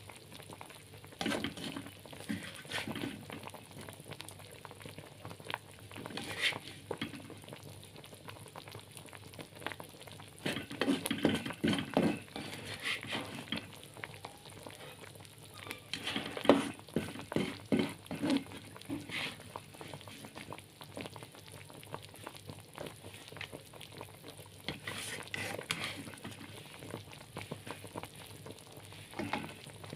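A utensil scraping and knocking against a frying pan at irregular intervals as the cooked bitter melon stir-fry is scooped out of the pan, over a faint sizzle.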